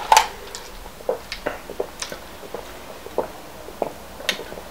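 A person drinking pop through a straw from a fountain-drink cup, with a string of short, wet swallowing clicks coming irregularly, about one or two a second.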